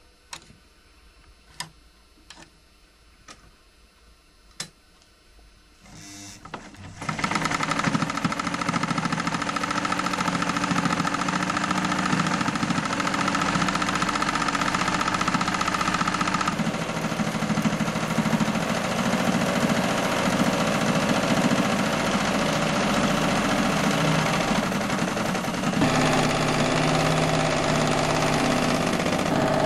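A few sharp clicks, then a sewing machine starts up about six seconds in and runs steadily at speed, stitching fabric. Its tone changes about halfway through and again near the end.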